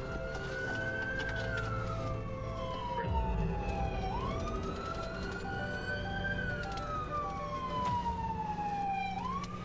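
Police cruiser siren wailing, its pitch sweeping up and then gliding slowly down in cycles of about five seconds, over the car's engine and road noise as it drives.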